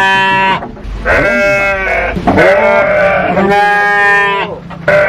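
Bleating farm animal: several long, wavering bleats one after another, each about a second long.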